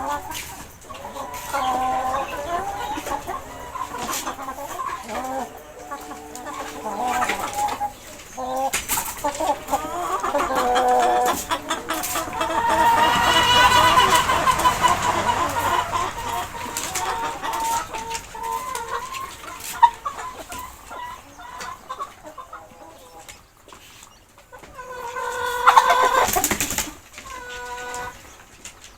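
Chickens clucking on and off, with a long, loud call about halfway through and another loud call near the end.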